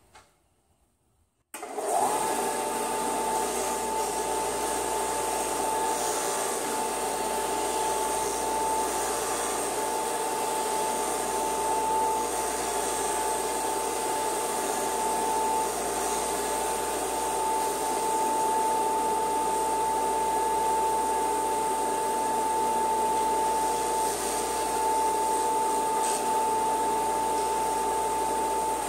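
Porter-Cable bench belt and disc sander switched on about a second and a half in. Its motor spins up quickly and runs with a steady whine while a plywood board is held against the spinning disc to sand a curve into it, and it starts to wind down at the very end.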